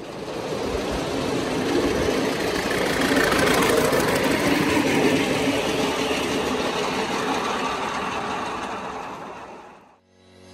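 A 5-inch gauge live steam locomotive running with a coach, its sound building up and then fading away near the end.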